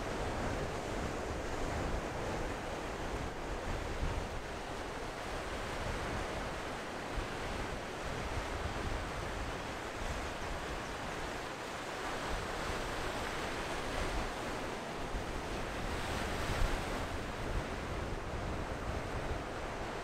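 Ocean surf breaking and washing up the beach: a steady rush that swells and eases, with low wind rumble on the microphone.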